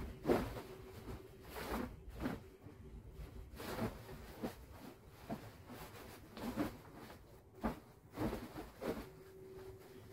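A bed sheet rustling and swishing in irregular bursts as it is shaken out and folded by hand.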